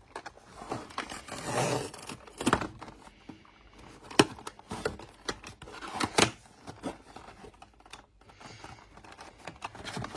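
A blind-box doll package being opened by hand: packaging tearing and crinkling, with a scattering of sharp clicks and scrapes.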